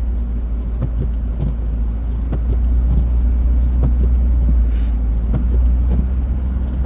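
A car being driven, heard from inside the cabin: a steady low rumble of engine and tyres, with scattered light ticks.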